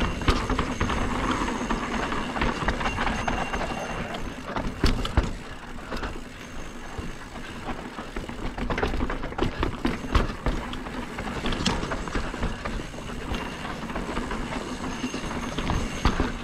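Full-suspension mountain bike riding down dirt singletrack and over a rock garden: tyres rumbling on the dirt, with the frame, chain and parts rattling and knocking over rocks and bumps throughout, a few sharper knocks standing out.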